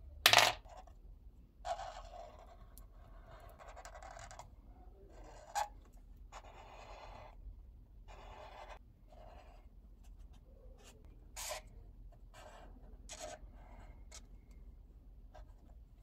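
Twin-tip permanent marker drawn across paper in separate strokes, a dry scratching rasp with short pauses between lines, and a few sharp clicks among them. A loud click near the start as the marker's cap is pulled off.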